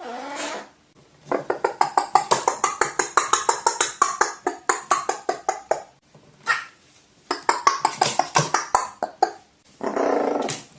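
Pet crow calling: a short call, then two long runs of rapid short clicking calls at about eight a second, and one longer call near the end.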